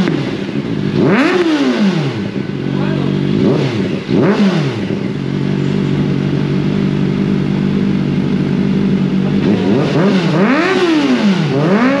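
Kawasaki ZX-4RR's 399 cc inline-four idling through an aftermarket slip-on muffler, with quick throttle blips that rise and fall in pitch. There are three blips in the first five seconds, then several seconds of steady idle, then two more blips near the end.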